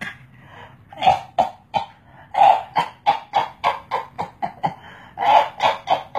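A baby making a quick series of short, breathy, cough-like vocal bursts, about three a second, in three runs starting about a second in.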